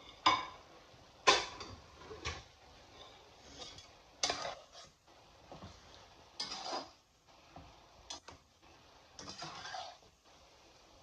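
Metal slotted spatula scraping and clinking against a pan while spaghetti is tossed and stirred, in irregular strokes every second or two. The loudest strokes come near the start.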